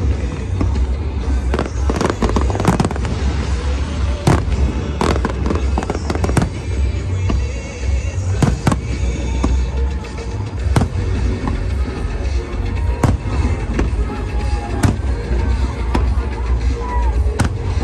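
Aerial fireworks show: a continuous barrage of sharp bangs and crackles at irregular intervals over a steady low rumble, with music playing underneath.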